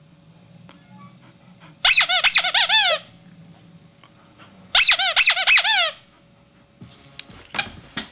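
A squeaky dog toy squeezed repeatedly in two quick runs of squeaks, a few seconds apart. A few faint clicks follow near the end.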